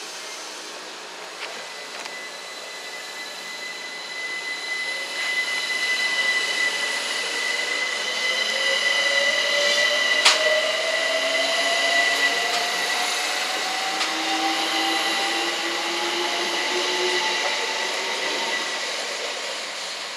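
London Overground Class 378 electric multiple unit pulling away and accelerating past. The whine of its traction motors climbs steadily in pitch as the train gathers speed, over the running noise of wheels on rail that swells, peaks about halfway through and then eases as it draws away. A steady high tone sits above it, and there is one sharp click about ten seconds in.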